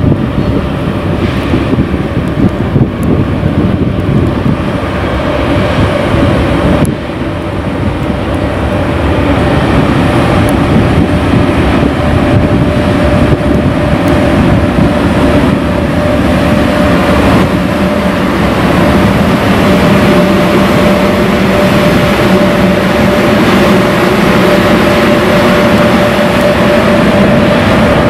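Electric locomotive running along the tracks and passing close by: a loud steady running noise, with a steady tone that grows stronger in the second half as it nears. Wind buffets the microphone at first.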